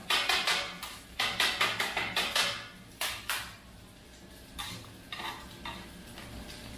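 Metal blades chopping kottu roti on a steel griddle plate: a fast run of clanging strikes, about five a second, that breaks off about two and a half seconds in, followed by two more clangs and a few lighter taps.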